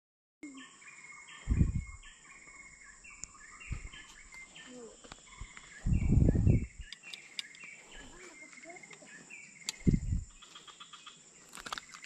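Forest insects keep up a steady high drone while a run of short, repeated chirping calls goes on throughout. Low thumps break in about 1.5 s, 6 s and 10 s in, the one near 6 s the loudest and longest.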